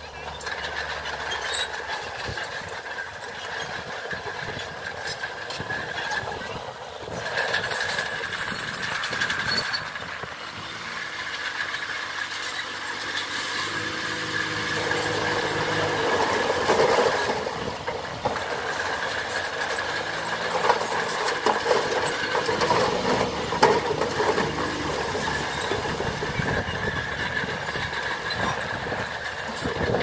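Diesel engines of a small bulldozer and a dump truck running. From about the middle, the truck's engine note holds higher as its bed tips, and the load of soil and rocks slides off with a brief rush about halfway through.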